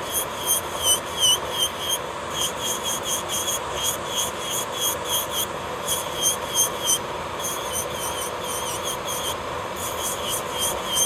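Electric nail drill (e-file) with a bit grinding down thick gel polish on a fingernail. The motor whines steadily, and its pitch dips briefly with each quick filing pass, about three or four passes a second, with short pauses between runs.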